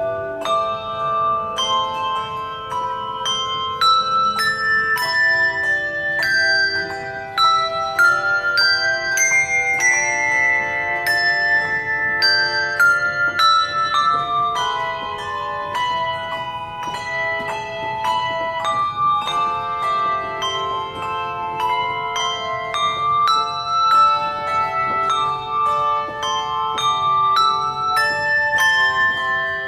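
Handbells playing a melody with chords. Each struck bell rings on and overlaps the notes that follow.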